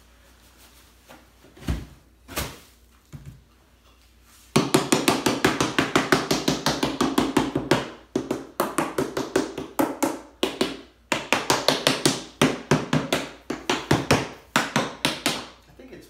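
Rubber mallet striking a plastic beehive mold to knock loose an aircrete casting that is stuck around the rim. A few separate knocks come first, then from about four seconds in a fast run of blows, about four or five a second, with short pauses.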